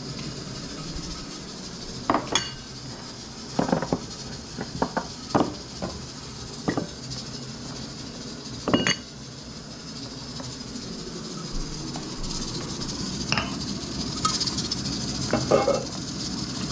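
Kitchen clatter: irregular sharp knocks and clinks of a knife, bowl and dishes on a wooden cutting board and counter, about a dozen hits with the loudest about nine seconds in. Under them is a steady hiss that grows near the end, from a stainless pot of soup at a rolling boil on a gas stove.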